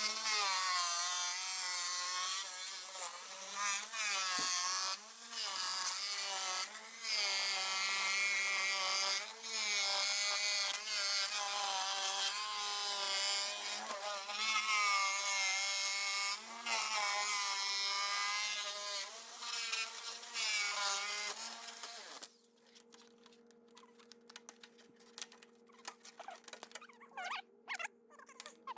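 Jigsaw cutting through a plastic brooder tote lid, its motor whine wavering up and down in pitch as the blade works through the cut. It stops suddenly about 22 seconds in, leaving only a faint steady hum and a few light clicks.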